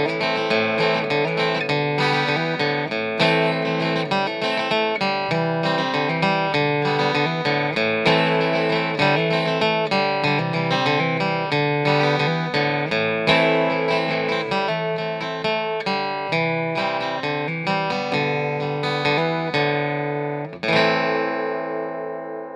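Instrumental music of a guitar picking quick plucked notes, ending near the end on a last chord that rings out and fades.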